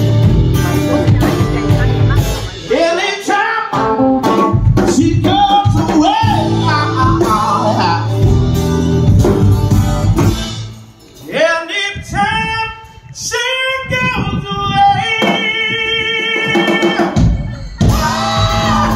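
Live band music: a male singer over acoustic guitar and drum kit. About halfway through, the drums and low end drop out and the voice carries a long run of sung notes with little accompaniment. The full band comes back in near the end.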